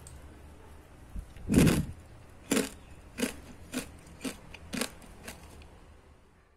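Crispy fried intestine chips (keripik usus) crunching as they are eaten: one loud bite about a second and a half in, then six sharp crunches about half a second apart as they are chewed.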